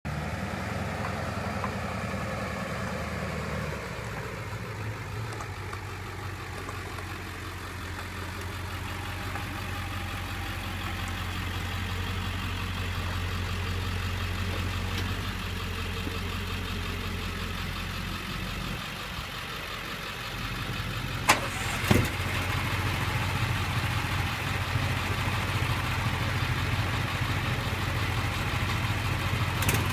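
Heavy-duty pickup truck engine running steadily at low speed and idling while towing a scale trailer, its note shifting a few seconds in and again about two-thirds through. Two sharp knocks come about a second apart just after that.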